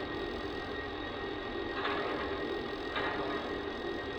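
Lionel Legacy Y6-b O-scale locomotive's onboard sound system playing standing steam-engine sounds: a steady hiss with a light mechanical rattle, and soft puffs about two and three seconds in.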